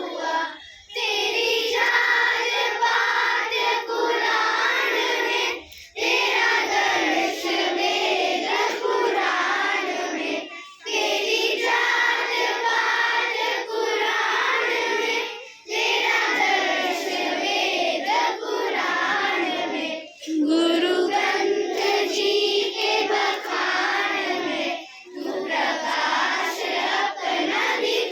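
A group of children singing a song together in unison, in phrases of about four to five seconds with a short breath between each.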